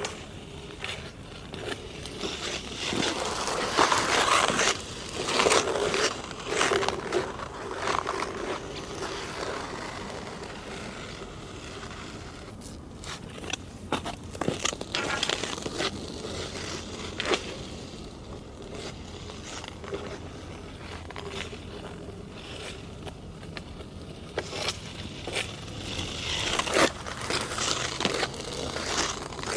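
Sharp ice-skate blades cutting and scraping across hard natural black ice in rhythmic strokes, with short crisp clicks between them. The scraping grows louder for a few seconds early on and again near the end.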